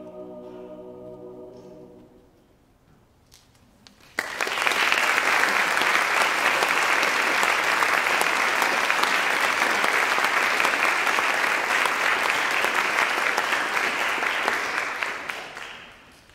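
A choir's final held chord dies away, and about two seconds later the audience breaks into loud applause that fades out near the end.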